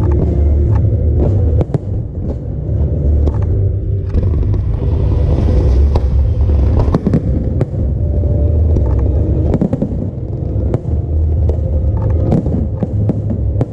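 Fireworks display: many sharp bangs in quick succession over a continuous heavy low rumble of booms, with a stretch of hiss about a third of the way in.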